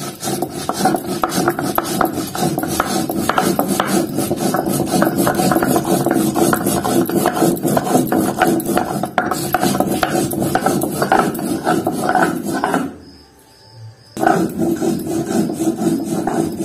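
Cumin seeds being ground on a flat stone slab (sil-batta) with a stone muller, a steady rasping stone-on-stone rub with a short break near the end.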